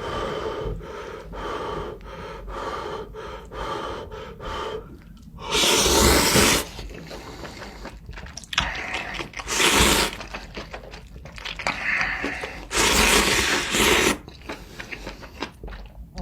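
A person eating spicy seafood ramen close to the microphone. They chew with quick wet clicks for the first few seconds, then give three long, loud slurps spread over the rest.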